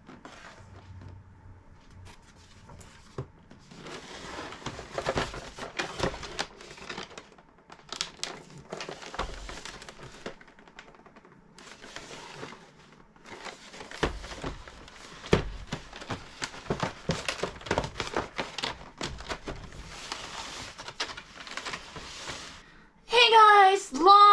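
Crinkling and rustling with scattered sharp clicks, in irregular stretches, as of material being handled close to the microphone. A man's voice starts near the end.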